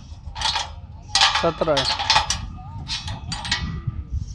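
Ratchet spanner clicking in a few quick bursts, one for each stroke, as it tightens a bolt at the base of a steel mounting-structure post.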